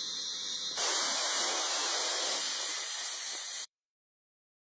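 Steady hissing noise that gets louder about a second in and cuts off suddenly near the end.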